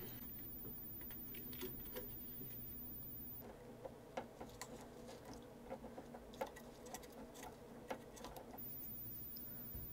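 Faint scattered crackles and ticks while flux-dipped wires are soldered to a small circuit board, thickest through the middle few seconds: flux spitting under the soldering iron and small handling clicks, over a low steady hum.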